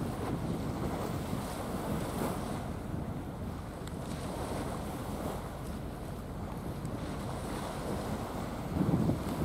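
Wind on the microphone, a steady low rush, with waves washing on the water.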